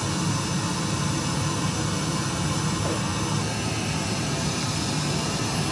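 Pink test noise played through a Harbinger V2408 8-inch powered PA speaker: a steady, even hiss at constant level.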